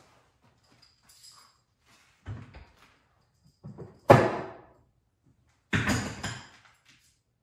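A few heavy clunks and knocks from things being handled in a workshop: one about two seconds in, a pair a little after three and a half seconds with the second the loudest, and another near six seconds, each dying away quickly.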